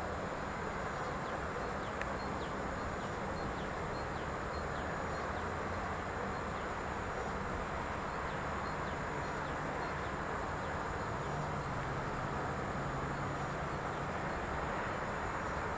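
Steady rumble of distant road traffic, with a low engine hum that shifts in pitch about two-thirds of the way through. Faint, short, high ticks recur about twice a second over it.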